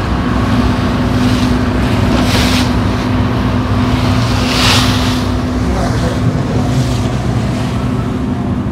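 Passenger ferry under way: its engine runs with a steady low hum while water rushes past and wind buffets the microphone, with two louder hissing surges, one about two and a half seconds in and one near five seconds.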